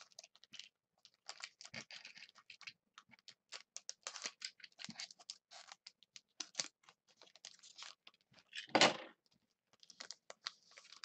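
Shiny trading-card pack wrapper being slit open with a small plastic cutter and handled: many light crinkles, taps and scratches, with one louder rustle near the end.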